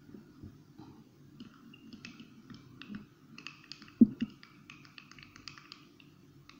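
A spoon clicking and scraping against the inside of a small drinking glass while tomato juice and toothpaste are stirred together, with one louder knock about four seconds in.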